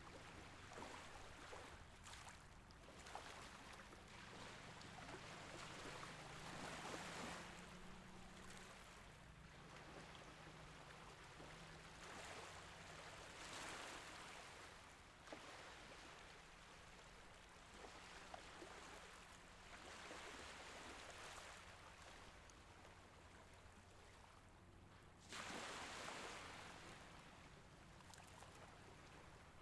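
Small Mediterranean Sea waves washing in softly, a gentle swell of sound every few seconds, with the largest wash coming near the end.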